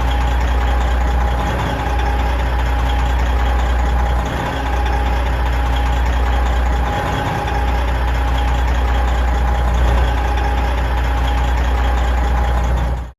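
Big truck diesel engine idling steadily: a deep, even rumble with a steady higher tone running above it. It cuts off suddenly at the very end.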